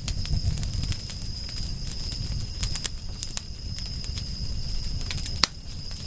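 Campfire crackling: frequent sharp snaps and pops over a low rumble of the burning fire, with one louder pop about five and a half seconds in. A thin steady high tone runs underneath.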